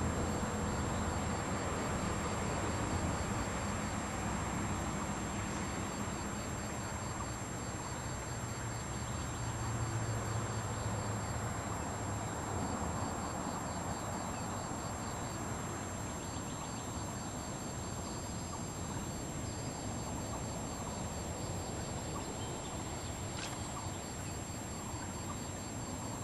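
Steady outdoor ambience by a pond: a low, even background rumble with a faint high chirping repeating in runs of several seconds, from a bird or insect. A thin constant high tone runs underneath, and there is a single faint tick near the end.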